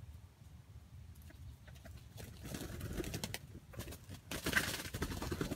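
Jungle-fowl rooster calling twice, each call about a second long, the second louder.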